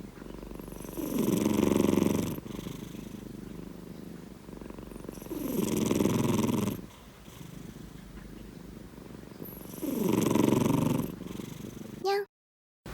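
A sleeping domestic cat snoring with a drill-like buzzing rattle: three loud swells, each lasting over a second, come about four seconds apart with its breathing, and a quieter rasp runs between them. The sound cuts off suddenly just before the end.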